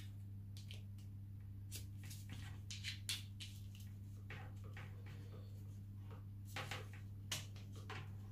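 Faint clicks, taps and rustles of plastic and brass parts being handled as the lance is fitted into a garden pressure sprayer's trigger handle and its hose is moved, over a steady low hum.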